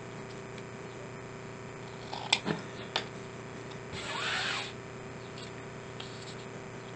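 Handling at a craft table: a few light clicks and taps of small metal rings and scissors set down on the table about two to three seconds in, then a brief scraping rustle about four seconds in, over a faint steady hum.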